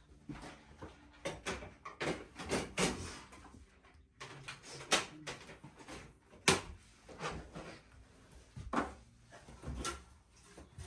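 Plastic parts of an Epson SC-F570 printer being handled and fitted: a run of irregular clattering knocks and clicks, the sharpest about six and a half seconds in.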